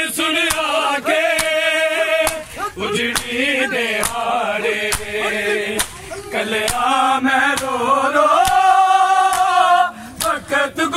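A group of men chanting a noha, a Shia Muharram lament, in unison, with sharp slaps of hands on bare chests (matam) keeping a steady beat about twice a second.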